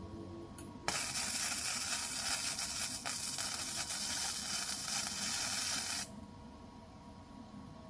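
Electric welding arc burning on the steel mower handle: a steady hissing sizzle starts about a second in, runs for about five seconds as one weld bead is laid, then cuts off suddenly.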